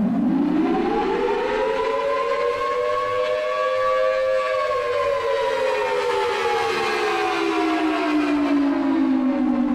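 Tornado warning siren sounding one long wail. Its pitch rises over the first four seconds or so, then slowly falls for the rest.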